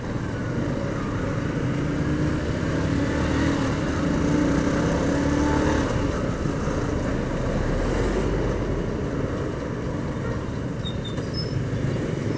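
Yamaha R15 single-cylinder motorcycle engine running at low speed while lane-splitting through stop-and-go traffic, with the hum of surrounding cars and scooters. Its pitch climbs slowly for a few seconds as it picks up a little speed.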